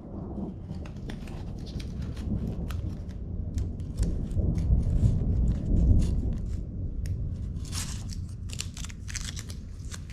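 Scalpel blade cutting masking tape over a wheel's center cap, drawn around a suction-cup guide: small ticks and crinkling of the tape over a low rumble that swells around the middle.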